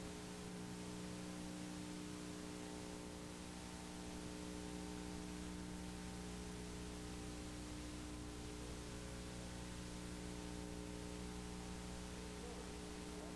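Steady electrical mains hum with a stack of higher overtones over a faint hiss: the background noise of an old analogue video recording, with no voice or music.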